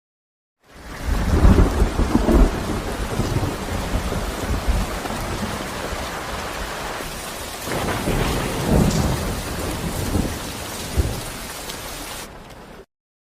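Film destruction sound effect: a deep rumble with a dense hiss and patter like falling debris, starting suddenly, swelling twice and cutting off abruptly near the end.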